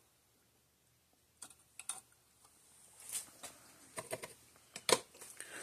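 Faint, scattered light clicks and taps, about a dozen, clustered in the second half and strongest near the end: the small contact noises of tools working at a circuit board while a diode lead is being hand-soldered.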